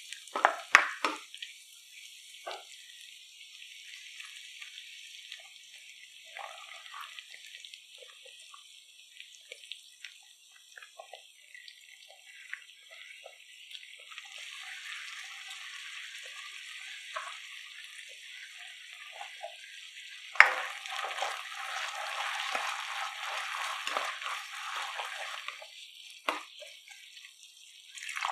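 Sliced onions, capsicum, cashews and dried chillies sizzling in a hot wok, with a spatula scraping and tossing them in the first second. About twenty seconds in a sharp clack comes and the sizzling grows louder, and at the very end water poured into the hot sauce hisses up.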